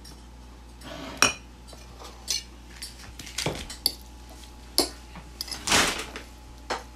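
Metal kitchen utensils and stainless steel pots clattering: irregular sharp clinks and knocks, with a longer clatter about six seconds in.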